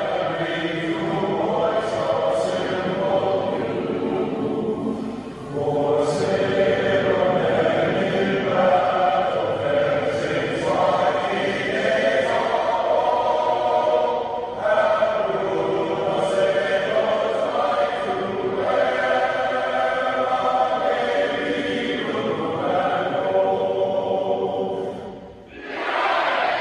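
A crowd of voices singing a song together, line by line, breaking into cheering and shouting just before the end.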